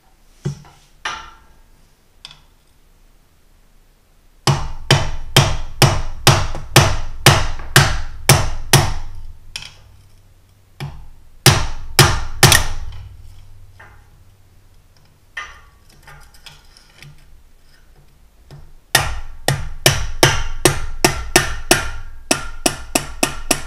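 Hammer tapping on the underside of a Ford T-5 transmission's stock shifter to break its RTV silicone seal loose: three runs of quick, sharp strikes, the last one longest and fastest.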